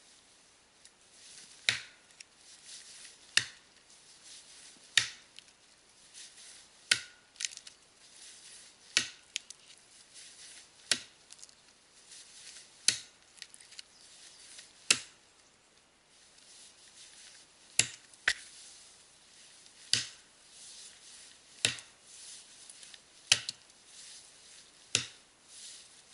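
Axe chopping into a standing conifer trunk with upswing strokes into the felling cut: about fourteen sharp wooden blows at a steady pace, roughly one every two seconds.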